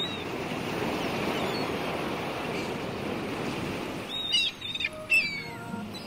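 Sea waves making a steady wash of surf, with a few gulls calling in short falling cries about four to five seconds in.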